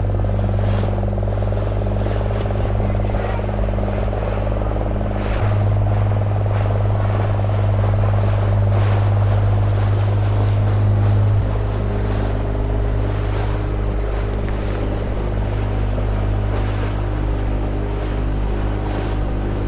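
Motorboat engine running steadily under way, a deep even hum that grows louder for about six seconds in the middle before settling back, with faint whooshes of water or wind over it.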